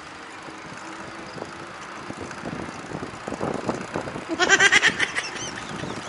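Wind on the microphone and rolling noise of a bicycle ride. About four and a half seconds in, a quick series of loud, high repeated calls lasts about a second.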